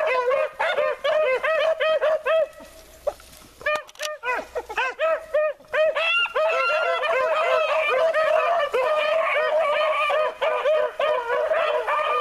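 A pack of beagles baying in quick, overlapping yelps while trailing game through brush, with a brief lull about two seconds in before the voices pick up again.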